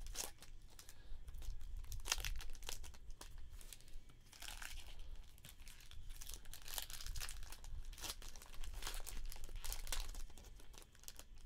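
Foil trading card pack wrappers being torn open and crinkled by hand, in a string of irregular crackles with a few louder bursts of rustling.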